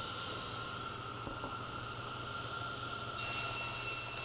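Table saw running steadily with a motor whine over a hiss. About three seconds in, a brighter, higher hiss joins.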